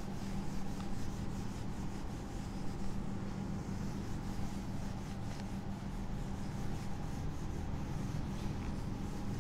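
Duster wiping marker writing off a whiteboard, with repeated rubbing strokes over a steady low hum.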